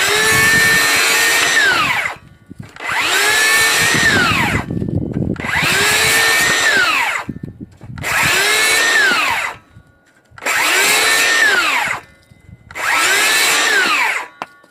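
DeWalt DCS578 60V cordless circular saw cutting firewood limbs in six short runs. Each time the motor whines up to speed, holds steady for a second or two without bogging, then winds down as the trigger is released.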